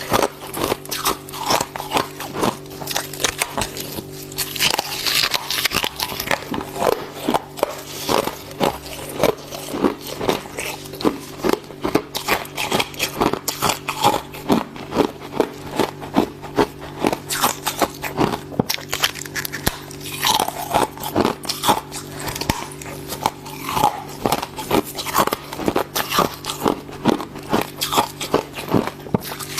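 Fluffy freezer frost and ice chips being bitten and chewed close to the microphone: a dense run of crisp crunches, roughly two a second, under a steady low hum.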